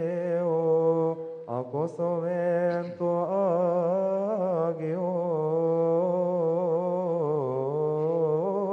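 Coptic Orthodox liturgical chant: a male voice sings a long, melismatic line with wavering pitch over a steady low held tone, without pause except for a short breath about a second and a half in.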